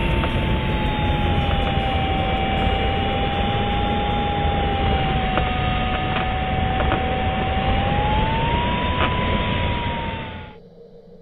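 Rushing airflow inside a glider cockpit with the audio variometer's steady single tone, which slides slowly lower and then rises again about eight seconds in. Both cut off abruptly near the end.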